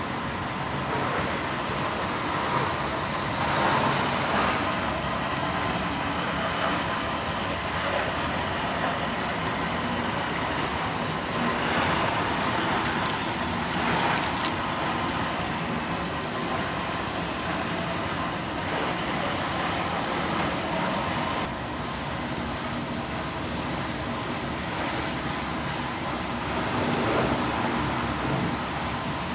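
Factory machinery running steadily: a constant mechanical din with a few brief louder swells.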